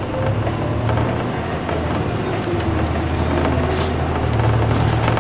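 City bus engine running as the bus drives, heard from inside the bus: a steady low hum with a whine that rises and falls in pitch. A few sharp clicks or rattles come in the second half.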